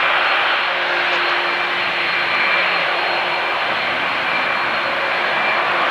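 Rolls-Royce Trent 892 turbofan engines of a Boeing 777-200ER running steadily at taxi power: an even jet rush with a faint high whine on top.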